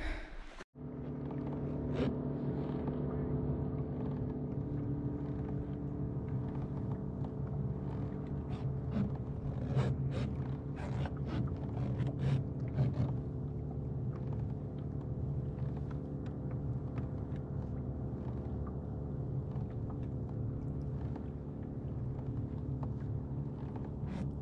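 An engine or motor running steadily with a droning hum, and a scatter of light clicks and rattles over it.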